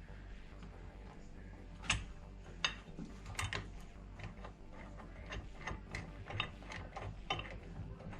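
Hand ratchet wrench clicking in short, irregular runs of strokes, starting about two seconds in, as bolts on a wheel and disc-brake assembly are run down.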